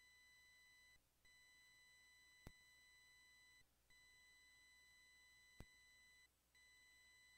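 Near silence apart from a faint, steady high electronic tone, interference in the recording chain, that cuts out briefly three times, with two soft clicks.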